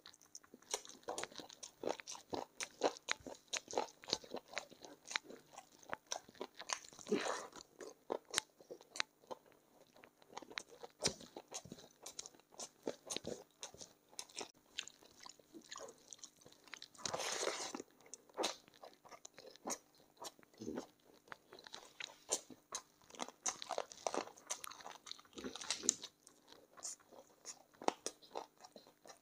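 Close-miked eating of chicken feet in curry: irregular crunching, biting and chewing on the skin and cartilage, a dense run of small wet clicks and snaps, with three longer noisy sounds spaced through it.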